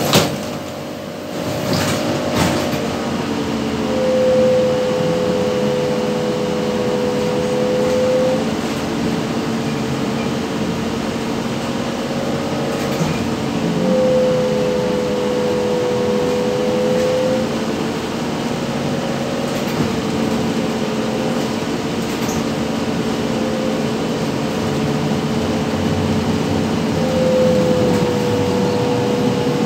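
Inside a ZiU-682G-012 trolleybus while it drives: a steady electric hum of several held tones over road and cabin noise. A higher whine swells in three times, each for a few seconds. A sharp knock comes right at the start.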